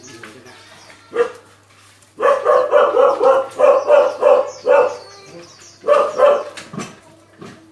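A dog barking: a single bark about a second in, then a quick run of barks, then a couple more near the end. Faint bird chirps sound in the background.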